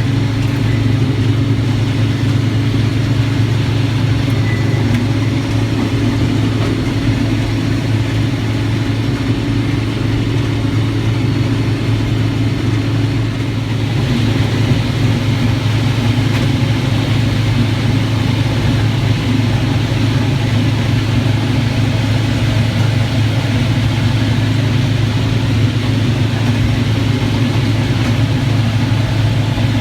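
Farm machinery engine running steadily under load, with a strong low hum. A little after halfway the sound dips briefly, then comes back with more rushing, hissing noise on top.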